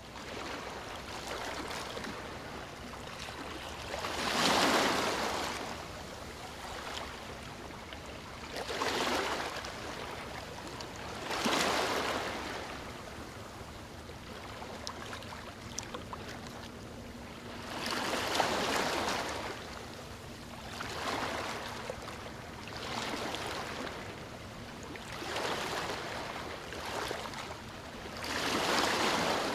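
Sea waves washing, a steady hiss of water that swells and fades again every few seconds.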